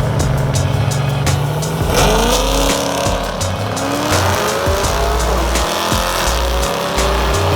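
American V8 muscle car engine idling, then launching hard about two seconds in, its revs climbing and dropping back several times as it shifts up through the gears while pulling away.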